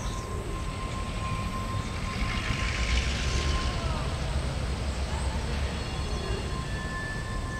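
Low, steady rumble of distant CN GP9RM diesel locomotives approaching from far down the track. A thin steady whine runs through it, breaking off for a moment just after the middle, and a hiss swells and fades about two to four seconds in.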